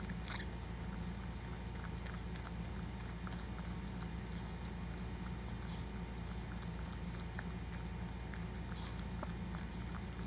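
Maltese mother dog licking her newborn puppy clean, a run of small wet mouth clicks over a steady low hum.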